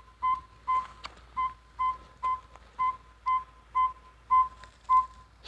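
Northern saw-whet owl giving its advertising call: a long, monotonous series of evenly spaced, single-pitched toots, about two a second. This is the male calling for a mate.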